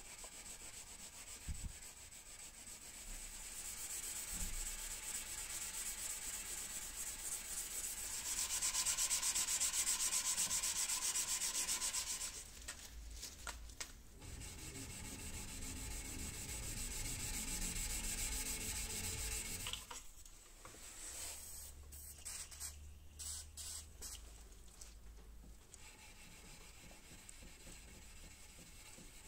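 Hand sanding a high-speed-steel knife blade with sandpaper wrapped around a block, quick back-and-forth rubbing strokes. It comes in several passages with short breaks, the loudest about a third of the way through.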